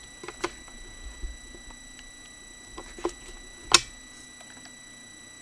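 A handful of short, sharp clicks from a computer mouse and keyboard being worked, spaced irregularly, the loudest a little under four seconds in.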